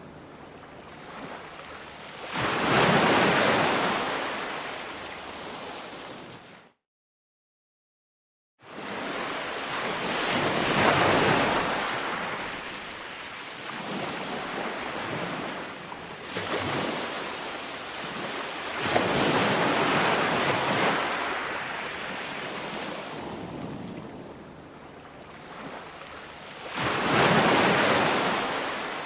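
Ocean surf: waves break on a shore and wash back in repeated surges, one every several seconds. A few seconds in, the sound drops out to total silence for about two seconds.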